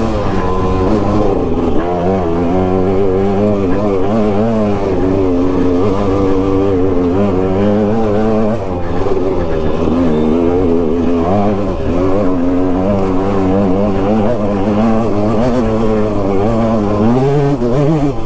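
2006 KTM 200 XC's single-cylinder two-stroke engine running under way on the trail, its pitch rising and falling continuously as the throttle opens and closes, with a couple of brief dips.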